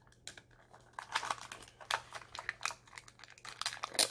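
A plastic Mini Brands capsule being handled and opened by hand: irregular light clicks and taps on the hard plastic shell, with soft crinkling of its plastic wrapping. The sharpest click comes near the end.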